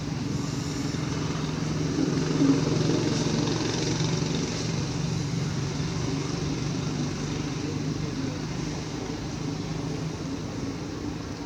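A motor vehicle engine running with a steady low hum. It grows louder about two seconds in, then slowly fades.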